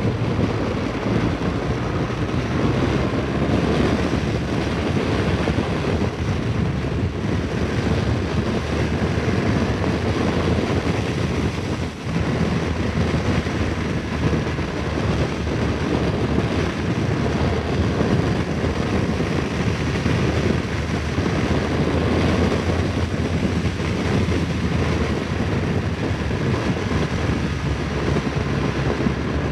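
BMW R1200GS motorcycle's boxer-twin engine running at road speed, with wind rushing over the microphone. The sound is steady, dipping for a moment about twelve seconds in.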